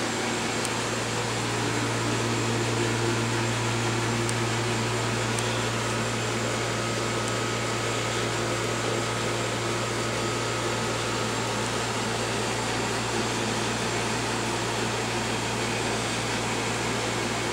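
Steady low hum with an even hiss over it, unchanging throughout, like a fan or electrical noise.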